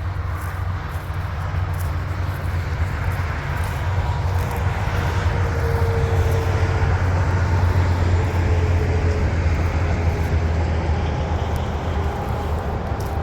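Heavy vehicle engine running nearby with a steady low rumble, growing louder towards the middle and easing slightly near the end.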